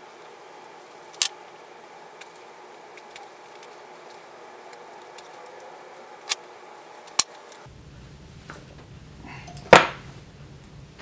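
Hand stitching thick leather: a few sharp snaps as the thread is pulled tight through the stitch holes, spaced seconds apart, the loudest near the end, over a steady low room hum.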